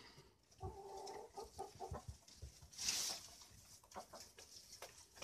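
A hen clucking quietly, one low steady call for about a second and a half, followed near the middle by a brief rustle and a few faint clicks.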